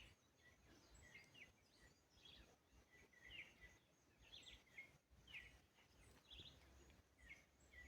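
Faint birdsong: short chirping notes repeated about once or twice a second, over a light background hiss.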